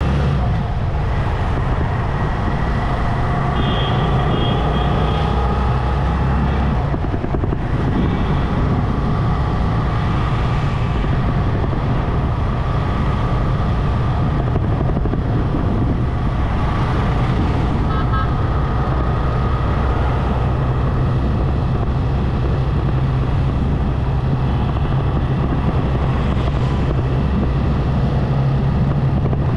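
Motorcycle engine running steadily while riding, with wind and road noise and the sound of surrounding city traffic. Short high beeps sound a few seconds in and again just past halfway.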